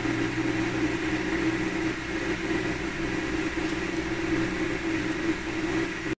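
Steady mechanical hum with a faint high tone, cutting off suddenly near the end.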